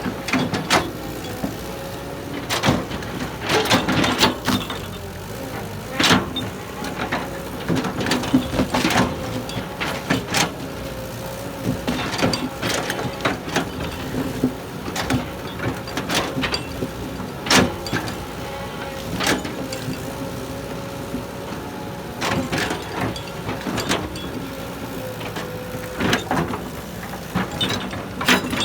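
Heavy earthmoving machinery running steadily, with irregular sharp knocks and clanks scattered throughout.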